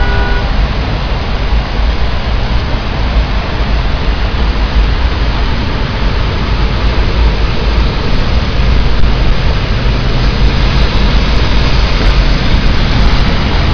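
Heavy rain pouring down in a steady, loud rush over a flooded street, with a deep rumble underneath, as cars drive through deep floodwater.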